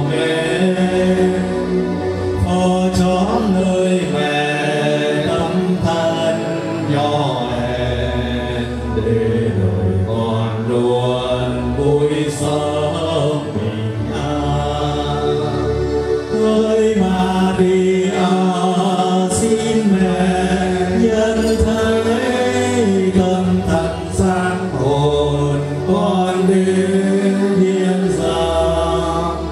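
Slow chanted singing over a sustained instrumental accompaniment with a steady low bass, continuing without a break.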